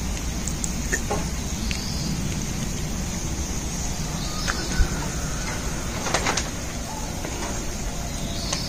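Outdoor background rumble with scattered light clicks, a sharp thump about five seconds in, and a few short bird chirps.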